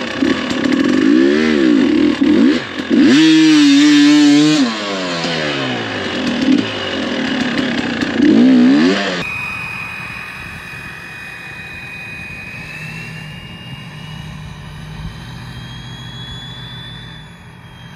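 GasGas EC300 single-cylinder two-stroke dirt bike engine revving up and down as it is ridden, held wide open for about a second and a half early on. After about nine seconds it gives way abruptly to a quieter steady drone with a thin high whine that rises slightly.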